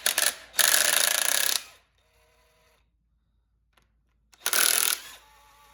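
Power impact wrench running in two bursts, about a second and then half a second, backing out bolts on the engine.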